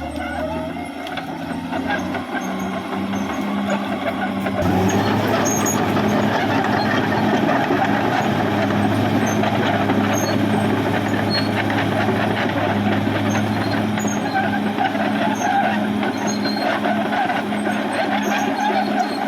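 Caterpillar D6R XL bulldozer's diesel engine running steadily; its sound steps up and grows louder about five seconds in, then holds.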